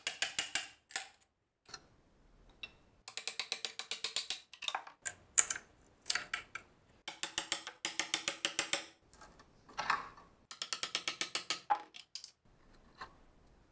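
A flat screwdriver prying and scraping the old, dried-out wooden handle scale off the steel tang of an axe held in a vise. It gives repeated bursts of rapid, evenly spaced clicking and crackling, each up to about a second long, as the blade chatters against the metal and the wood breaks away in chips.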